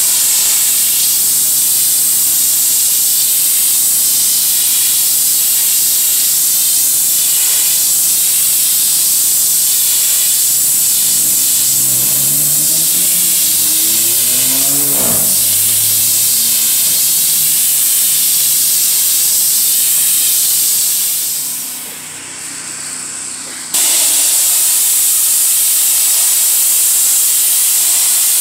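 Steady, loud hiss of a sprayer spraying liquid graffiti-removal solution onto a brick wall; the spray eases off about three quarters of the way through and comes back on sharply a couple of seconds later. About halfway through a pitched tone rises and then drops away.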